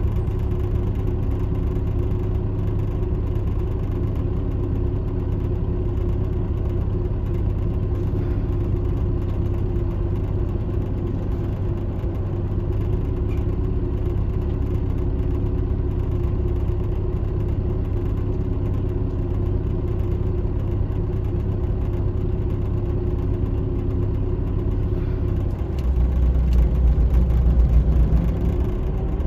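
Iveco 370S.12.30 coach's diesel engine idling steadily, heard from inside the cabin. About 26 seconds in, it gets louder and deeper as it is put under load and the coach moves off.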